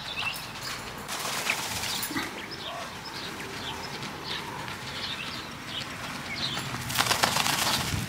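Quails dust-bathing in loose sandy dirt: two bursts of wing flutter and flung grit, about a second in and again near the end, with faint short chirps between.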